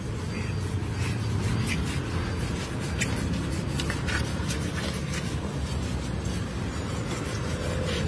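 A knife scraping and cutting across the large scales of a catla fish, giving short scratchy ticks every second or so, over a steady low rumble.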